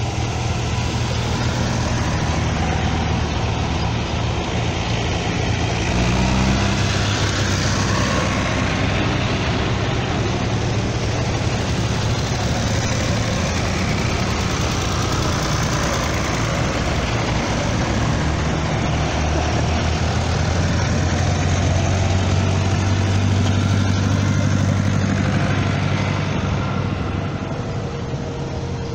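A line of old farm tractors driving past one after another, their engines running steadily. The sound swells as each one comes near and passes, most of all about six seconds in and again in the second half.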